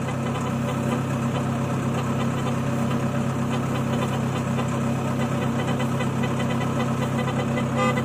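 Small rice combine harvester running steadily as it harvests, a constant low engine-and-machinery hum that holds at one pitch.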